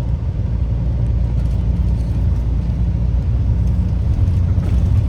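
Tour bus engine and road noise heard from inside the moving bus's cabin: a steady low rumble.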